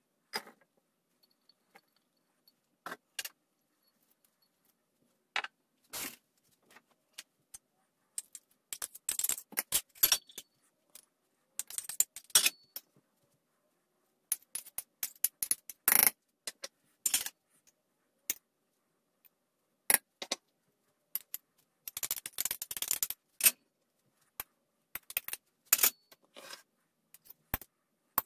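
Metal spoon clinking and scraping against small dishes while ingredients are spooned out into a mixing bowl: scattered sharp clinks in short clusters, with quiet gaps between them.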